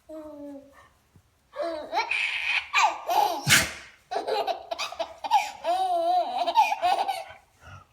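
A four-month-old baby laughing, in bouts of high, wavering laugh calls that run almost without break through the second half, with a short sharp noise about three and a half seconds in.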